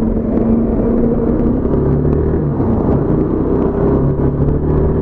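Motorcycle engine running on the move, heard through a mic inside the rider's helmet, over a steady rumble of wind and road noise. The engine note drops to a lower pitch about a second and a half in and holds there.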